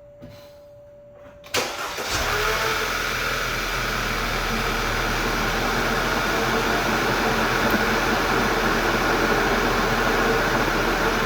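Audi A4 2.0T turbocharged four-cylinder engine, freshly fitted with new ignition coils and spark plugs, cranking and catching about a second and a half in, then running steadily at idle. Before it starts, a steady single tone is heard, which stops as the engine cranks.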